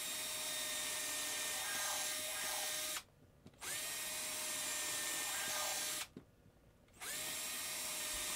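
Electric drill with a small bit boring holes through the thin wooden end of a cigar box. The motor spins up with a rising whine and runs steadily, stopping about three seconds in, starting again soon after, stopping around six seconds, then spinning up once more a second later.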